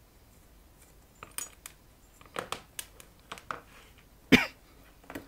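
Small metal parts and hand tools clicking and clinking on a workbench mat during the teardown of a wirewound rheostat: a scatter of light, sharp clicks, with one louder knock about four seconds in.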